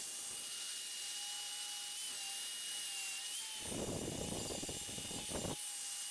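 Angle grinder with a flap disc running at a steady high whine. About halfway through it grinds against the aluminum weld for a couple of seconds, then touches the metal briefly near the end.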